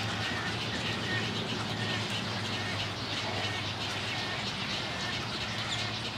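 Nesting colony birds calling together, a dense overlapping chatter of many short calls, over a steady low hum.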